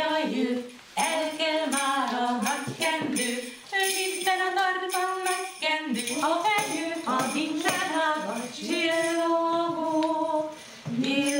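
A song sung by women's voices, with jingling percussion shaken in time.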